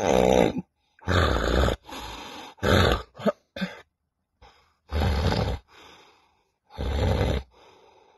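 A man snoring heavily in his sleep: loud, irregular snorts and gasps, each followed by a quieter breath out. This is obstructive sleep apnea snoring, caused by enlarged tonsils, a sagging soft palate and a blocked nose with a deviated septum.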